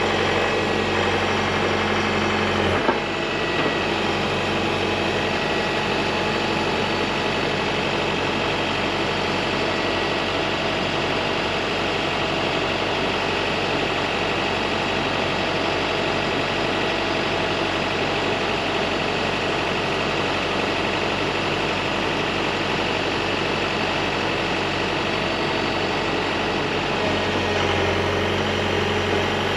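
Mecalac 8MCR compact excavator's diesel engine running steadily while its arm is worked. There is a sharp clunk about three seconds in, where the engine's low hum drops away; the hum comes back near the end.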